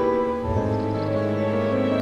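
Background music of sustained held chords over a steady bass note, changing chord about half a second in.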